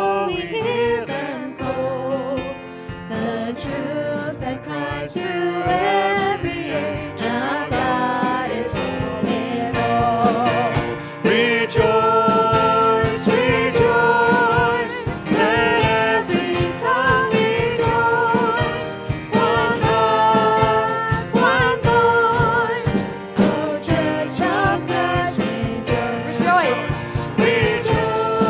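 Worship song: voices singing a melody over instrumental accompaniment.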